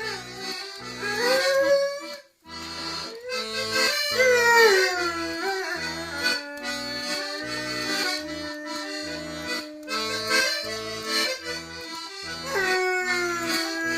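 Diatonic accordion playing a tune over a steady oom-pah bass, with a dog howling along in long wails that slide down in pitch, about three times: near the start, around four seconds in, and near the end.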